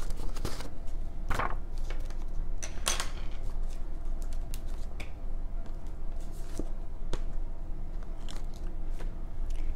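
Scattered clicks, taps and rustles of things being handled close to the microphone, over a steady low hum.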